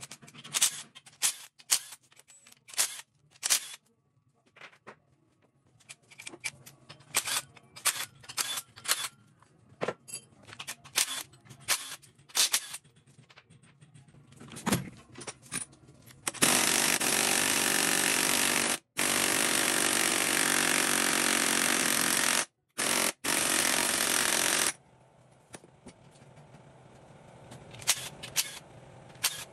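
Metal tools and engine parts clinking and knocking in a quick irregular series, then a loud, steady rush from a compressed-air tool for about eight seconds, cut off briefly twice.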